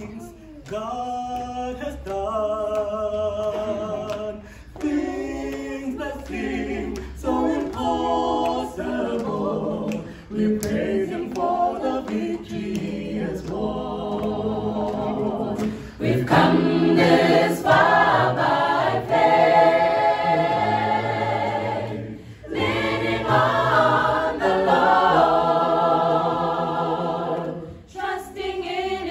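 Mixed choir of women and men singing a cappella in parts, in phrases with short breaks, growing fuller and louder about halfway through.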